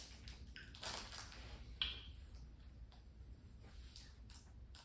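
Light clicks and a sharp click from the gum packet being handled in the first two seconds. Then faint ticks about twice a second as a tablet of powdery grape whistle gum is chewed.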